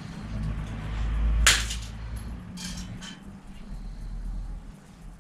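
Bicycle spokes being cut out of a wheel with cutters: one sharp snap about a second and a half in, then a couple of fainter clicks.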